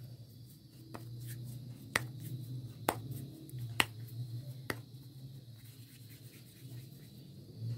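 Hands patting and shaping a ball of wheat-flour dough in dry flour: five sharp pats about a second apart, over a low steady hum.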